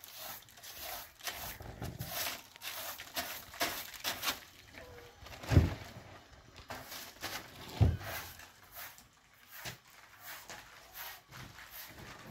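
Straw hand broom sweeping over plastic sheeting and carpets in quick repeated swishes, with two dull thumps about five and a half and eight seconds in.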